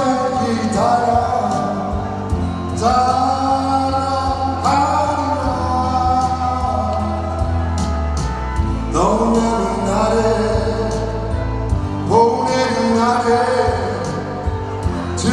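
A man sings a Korean popular song into a handheld microphone, amplified over instrumental accompaniment, in long sustained phrases with held, wavering notes.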